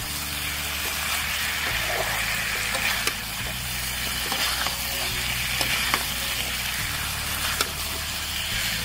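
Mutton pieces frying in masala in a hot black wok, sizzling steadily while a steel spatula stirs them, scraping and tapping against the pan a few times.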